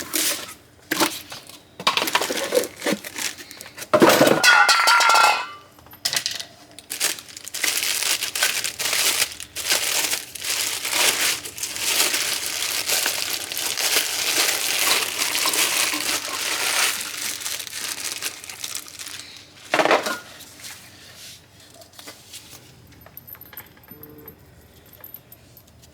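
Dense, irregular crinkling and rustling, like plastic or paper being handled, with a few clinks.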